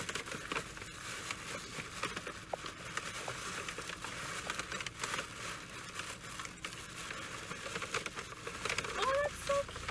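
Tissue paper and a paper gift bag crinkling and rustling as a present is pulled out by hand, with many small crackles throughout.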